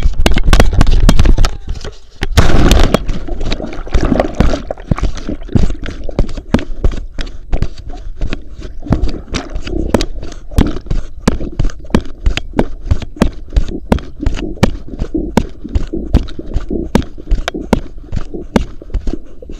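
Dog landing in the water with a loud splash, then swimming with the chest-mounted camera at and under the surface: churning water and sharp slaps and knocks about twice a second as its legs paddle.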